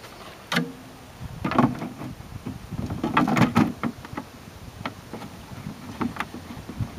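Moulded plastic lid being set onto a plastic catamaran bait boat's hull and pressed down: an irregular string of plastic knocks and clatters, busiest about three seconds in.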